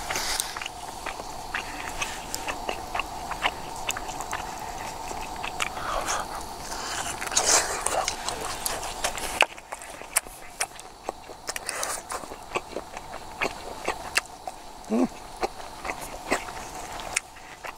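A person eating grilled meat by hand: biting and chewing, with small clicks and knocks from handling a wooden plate and a wooden cup.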